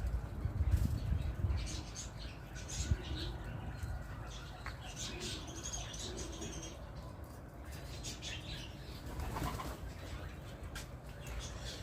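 Pigeons' wings flapping, loudest in the first second or two, then quieter with scattered light clicks.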